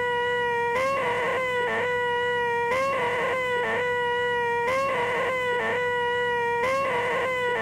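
A man's voice making a long, nasal, high-pitched 'eeeeh' squeal, the most annoying sound in the world, repeated over and over. Each squeal is held about a second and a half, then breaks off with a short catch, and starts again about every two seconds.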